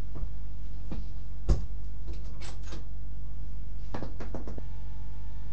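A door being handled: a few sharp clicks and knocks, the loudest about a second and a half in, with small clusters in the middle and near the end. A steady low hum runs underneath.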